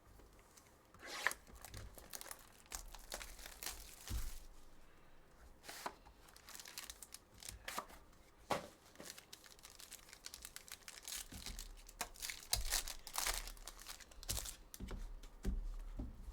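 Sports card packs being torn open and their wrappers crumpled, in irregular crinkling and tearing bursts that grow busier in the second half.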